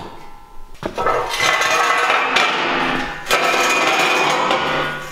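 Steel ramp frame scraping and clanking against metal and the concrete floor: two long stretches of scraping noise, each set off by a sharp metallic knock.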